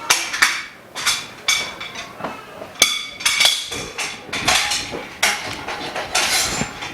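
Frame bars of a dust-free room enclosure being fitted and knocked together: an irregular run of about a dozen sharp knocks and clinks, several with a short ringing tone.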